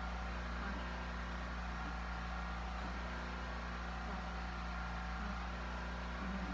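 Steady machine hum with a few constant higher tones over it, unchanging in level.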